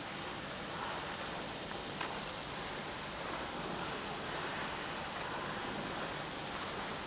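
Steady background noise of an ice rink, with a few faint clicks.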